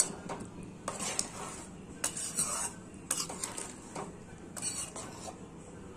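Metal spoon stirring a thick curry in a pot, scraping and clinking against the pot in several short irregular strokes, with a sharp click right at the start.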